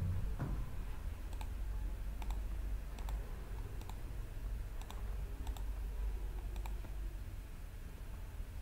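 Scattered clicks of a computer mouse, about a dozen at uneven intervals, over a low steady hum.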